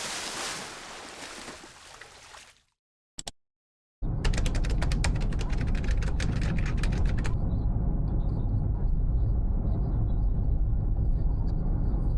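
Strong wind buffeting the microphone: a heavy, steady low rumble that cuts in suddenly about four seconds in, with rapid crackling over it for the first few seconds. Before a short gap, a loud hiss fades away.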